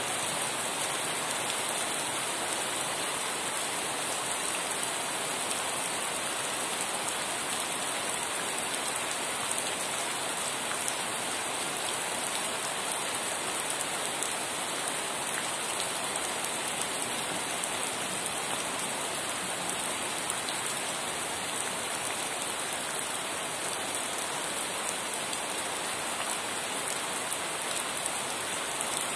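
Steady rain falling on a surface, an even, unbroken hiss.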